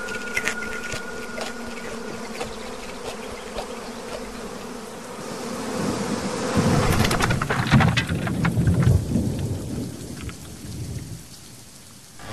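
A steady buzzing hum with scattered clicks, then a low rumble of thunder that swells about halfway through and fades away near the end, over a hiss like rain.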